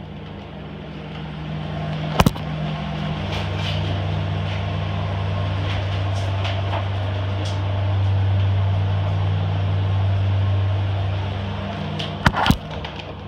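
A steady low machine hum, like kitchen plant running, that swells in the middle and eases off towards the end. A single sharp knock comes about two seconds in, and two sharp clacks near the end as a clear plastic strip curtain is pushed aside.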